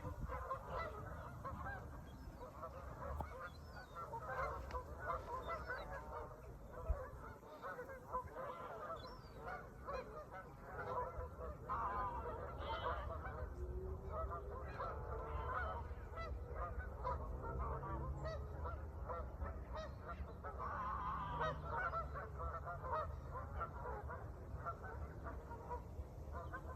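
A flock of birds calling, with many short overlapping calls over a low rumble.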